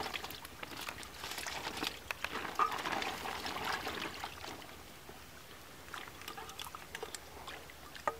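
Water splashing and trickling in irregular bursts, with scattered small splashes and drips.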